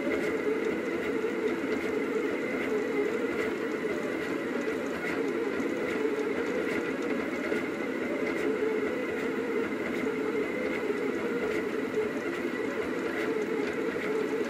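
Rostock delta 3D printer running, a steady mechanical hum and whir of its stepper motors and fans as the effector moves over the print.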